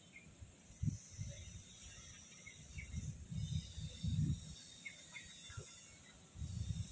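Outdoor ambience: a steady high insect drone with a few short bird chirps, over uneven low rumbling that comes and goes.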